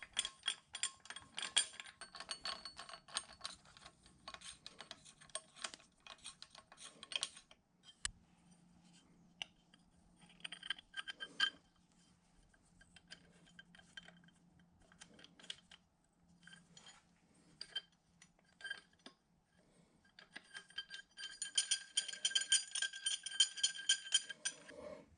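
Steel clamp parts and hand tools clinking and clattering on a milling machine table as clamps are fitted and tightened: many sharp metallic clicks with ringing, busiest at the start and again near the end, sparser in between.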